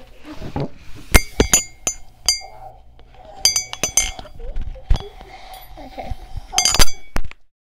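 Ceramic mug struck by a hard object: a series of sharp clinks, each ringing briefly, in uneven groups, with a quick flurry of clinks near the end.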